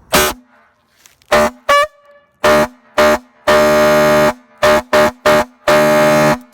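Fire truck air horn sounding in a series of loud blasts, about ten in all: mostly short honks, with two longer blasts of about a second each in the second half.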